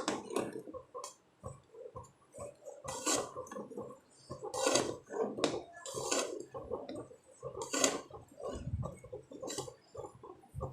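A utensil scraping and knocking against a pot while stirring a thick, thickening urad dal and coconut milk mixture, in irregular strokes every second or two.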